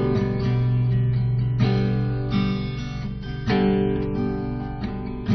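Acoustic guitar strumming slow chords, a new chord about every two seconds, each left to ring and fade: the instrumental opening of a song.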